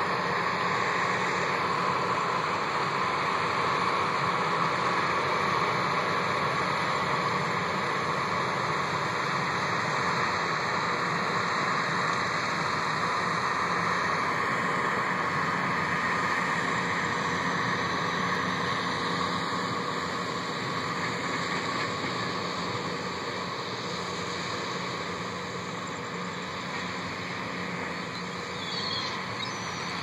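Tractor and sugar beet harvester running steadily in the field, a constant mechanical noise that grows slightly fainter in the second half.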